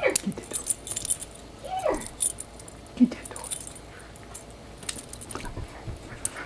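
Two dogs play-wrestling, their collar tags jingling over and over, with a few short vocal calls that fall in pitch near the start, about two seconds in and about three seconds in.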